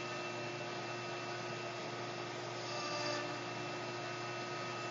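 GANNOMAT Index PSU CNC pocket-screw router running with its dust collection on: a steady whirring rush with a few held tones, and a brief swell about three seconds in.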